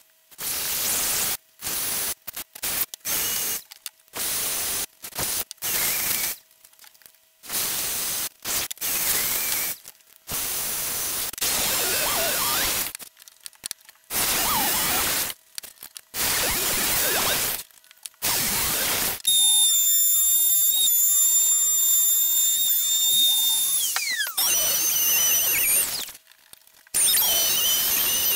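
Power tools run in a string of short, abruptly cut bursts of noisy whirring, each a second or two long. Later a high-pitched motor whine holds steady for about five seconds, then drops in pitch as the tool spins down, and more short bursts follow.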